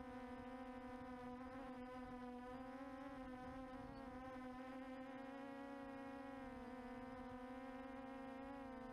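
QAV400 quadcopter's electric motors and propellers buzzing in flight, a steady hum that wavers slightly in pitch and drops a little near the end.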